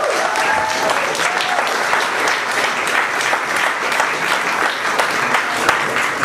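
Club audience applauding, a steady patter of many hands clapping, with a voice or two cheering near the start.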